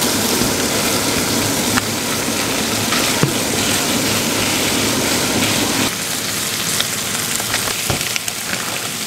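Food sizzling in butter in a frying pan, a steady hiss, over a low hum that cuts off about six seconds in; a few sharp clicks land on top.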